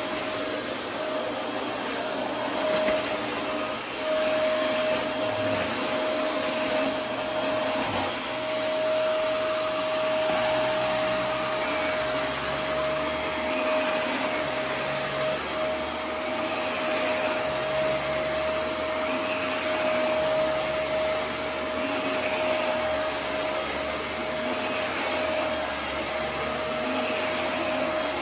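Dyson DC24 ball upright vacuum cleaner running steadily while vacuuming, with a constant high whine from its motor over the airflow noise.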